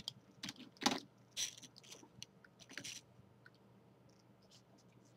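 Small plastic wind-up toys handled and set down on a tabletop: a string of light clicks, knocks and scrapes over about the first three seconds.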